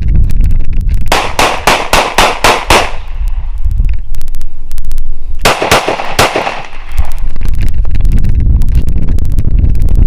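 Semi-automatic gunfire: a rapid string of about seven shots, then after a pause of two or three seconds another quick string of about four. A loud low rumble runs underneath.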